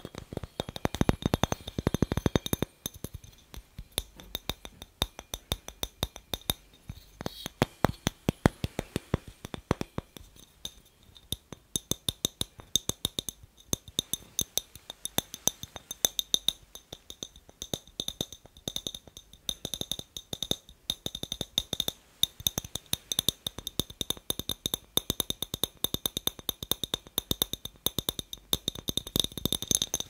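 Fingers tapping rapidly on a clear glass light bulb: a dense run of light clicks and clinks. From about the middle on, the glass rings on in faint high tones under the taps.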